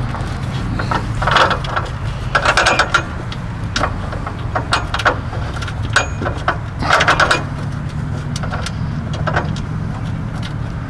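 Ratchet wrench clicking in short runs as 10 mm locking nuts are tightened up under a lawn tractor's rear fender, with a few louder bursts of ratcheting and handling, over a steady low hum.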